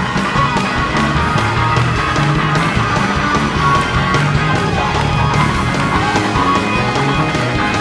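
Loud band music with a steady drumbeat and heavy bass notes, the full band playing continuously.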